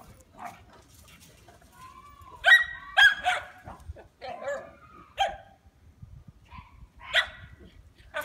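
Dog barking: a brief whine, then a quick run of sharp barks about two and a half seconds in, a few more between four and five seconds, and a single bark about seven seconds in.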